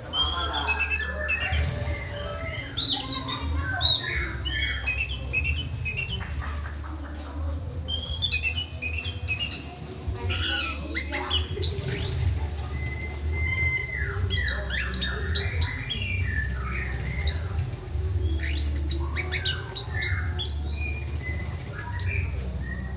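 Orange-headed thrush (anis merah) singing a long varied song of quick whistled phrases and rapid notes, with two harsh buzzy bursts, one past the middle and one near the end. A steady low hum sits underneath.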